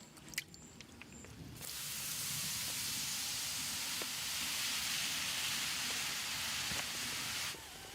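Food sizzling in a hot pan over a campfire: a loud, even hiss that starts abruptly under two seconds in and cuts off shortly before the end. A few faint clicks come before it.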